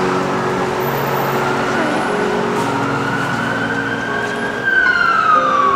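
Emergency vehicle siren wailing: a slow rise in pitch, then a steeper, louder fall about five seconds in.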